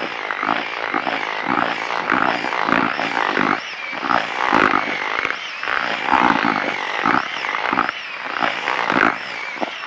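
Cordless drill spinning a whisk paddle through wet groundbait in a plastic bucket: continuous churning of the over-wetted mix with an uneven pulsing as the paddle works round the bucket.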